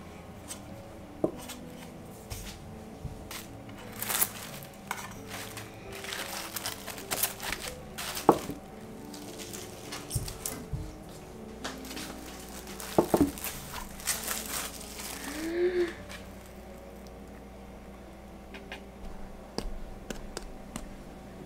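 Soft background music with scattered kitchen handling noises: clicks, knocks and rustling as a metal baking tray of bread dough balls is handled.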